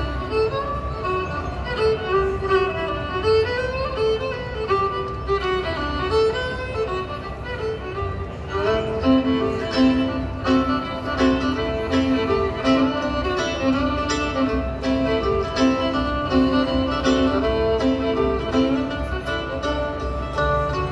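Bluegrass band playing a fiddle tune live: a fiddle plays the melody alone at first. About eight seconds in, a lower harmony line and the rest of the band join.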